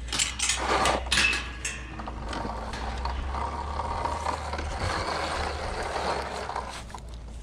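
Sur-Ron LBS electric dirt bike riding along, its 219 conversion chain and motor whirring steadily, with a few knocks and clatters in the first two seconds. The chain runs noisily, which the rider puts down to a brand-new chain that may be tensioned a little too tight.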